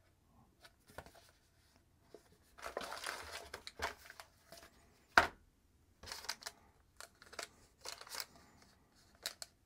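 Clear plastic accessory bags crinkling and rustling as they are picked up and handled in a cardboard box, with one sharp tap about five seconds in and lighter clicks and rustles after it.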